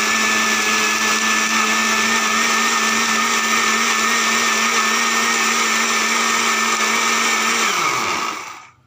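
Panasonic countertop blender running at a steady speed, grinding a wet green chutney of coriander leaves and chillies. Near the end it is switched off and the motor winds down, its hum dropping in pitch and fading out.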